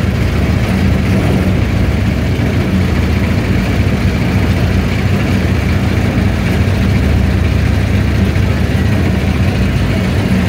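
Boat's engine running steadily under way, an even, loud low drone.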